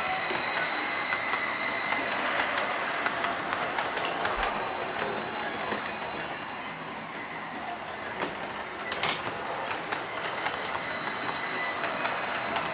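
H0-scale Liliput BLS RABe 515 double-deck model train rolling along the layout track, its wheels giving a steady rolling rattle with a faint high whine alongside. The sound fades somewhat in the middle as the train moves off, with a sharp click about two-thirds in, and grows louder again near the end as the train comes back past.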